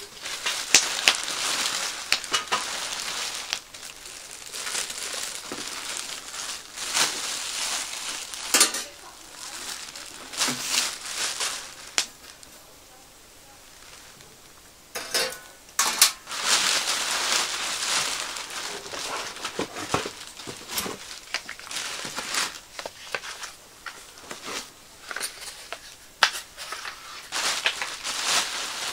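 Clear plastic film crinkling and rustling as it is pulled off a stainless steel fire bowl in its cardboard box, with a few sharp knocks from the handling. There is a lull of a few seconds near the middle.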